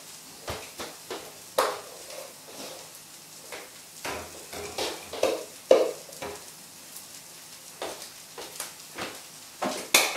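Mung bean pancake sizzling in a frying pan on the gas hob, a faint steady hiss, with scattered short knocks and taps over it.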